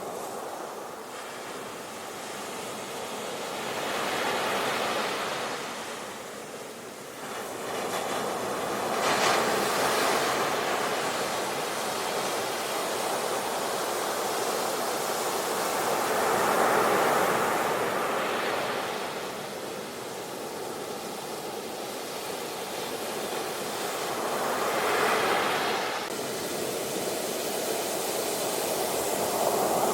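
Ocean waves breaking on the shore and washing in as foam, a steady rushing surf that swells and eases with each wave, about five peaks over the half minute.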